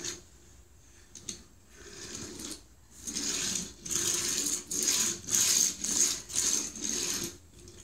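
A rhythmic mechanical vehicle sound effect, about two pulses a second, played through the small speaker of an electronic talking vehicle wall chart; it starts about three seconds in and stops shortly before the end.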